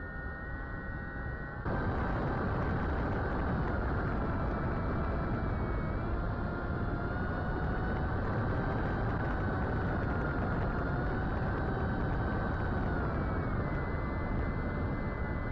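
Small RC plane's electric motor and propeller whining steadily over wind rush, picked up by a camera on board in flight. It gets louder about two seconds in, and the pitch wavers slightly with throttle.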